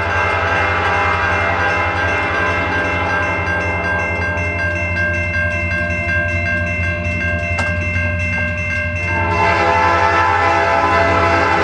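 Railroad crossing warning bell ringing steadily while the gates lower, with an approaching freight locomotive's horn sounding. About nine seconds in, the sound grows louder and fuller as new tones join.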